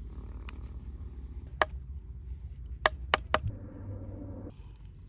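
Four sharp knocks over a low steady rumble: one about one and a half seconds in, then three in quick succession about a second later.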